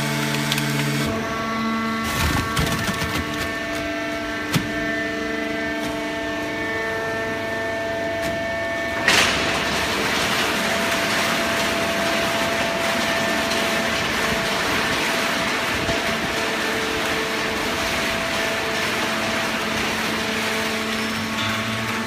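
Horizontal hydraulic cardboard baler running: a steady machine hum with several held tones that shift now and then, and a sharp bang about nine seconds in, after which a steady rushing noise takes over.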